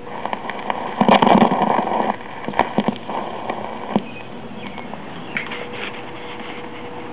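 Needle of a 1965 vacuum-tube talking book record player being set down on a flexible record: a loud scraping rustle about a second in, then scattered clicks and crackle for a few seconds, over a faint steady hum.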